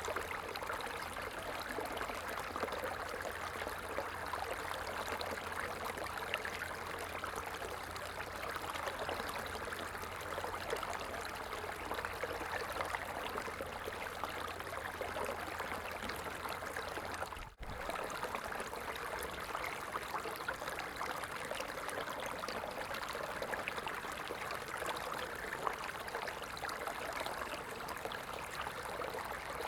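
A stream of water flowing and trickling steadily. About two-thirds of the way in there is a momentary break in the sound.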